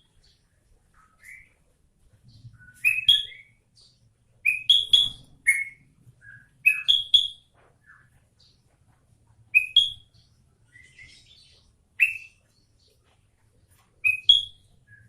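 Bulbul singing short, loud, clear phrases, one every two to three seconds.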